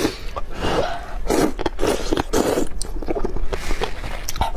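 Close-up mouth sounds of eating saucy rice noodles: wet slurping and chewing in a run of short bursts, then lighter clicking chews near the end.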